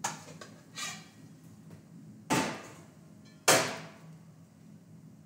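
Four sharp metallic clanks of stainless steel kitchenware being knocked and set down on a steel worktop, the loudest about three and a half seconds in, over a steady low hum.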